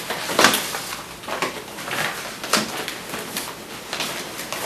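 Papers rustling and being handled on a meeting table, a few short rustles and bumps, the loudest about half a second in and another a little past two and a half seconds.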